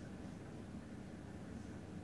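Quiet room tone: a faint, steady low hum and hiss with no distinct event.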